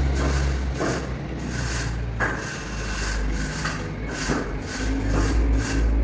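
A straight screed rule being drawn back and forth over a loose sand-and-cement subfloor mix, giving repeated gritty scraping strokes. A steady low rumble runs beneath.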